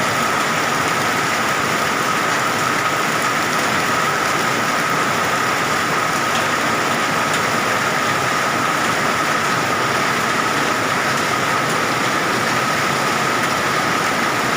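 Heavy rain pouring steadily in a hailstorm: a dense, even hiss of rain and hail with no let-up. A faint steady high tone lies under it.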